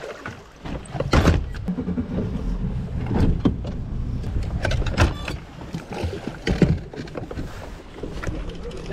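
Low rumble of wind on the microphone aboard a fishing boat, with scattered knocks and clicks from handling gear, including a quick run of rapid clicks about five seconds in.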